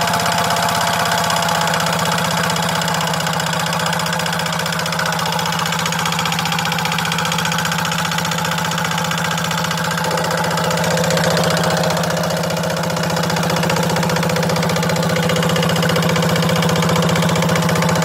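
Hatz E79 single-cylinder air-cooled diesel engine running steadily at a constant speed.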